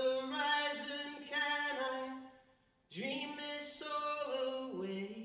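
A man singing unaccompanied into a microphone: two phrases of long held notes with a brief pause between them, the second phrase stepping down in pitch near the end.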